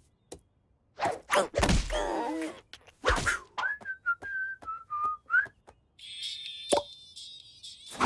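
Cartoon sound effects: a few sharp knocks and a swish, then a cartoon character whistling a short, wavering tune as he strolls. About six seconds in, a thin, high-pitched buzzing sound starts.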